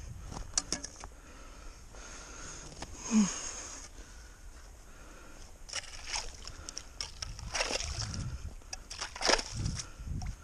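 Metal ice skimmer scooping slush and ice chips in a hole through lake ice: wet sloshing and scraping with scattered small clicks, and a few louder scoops about three, eight and nine seconds in.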